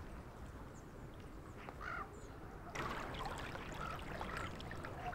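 River current flowing past open water and lapping against the edge of thin ice. It is faint at first, then becomes a fuller, brighter wash about three seconds in.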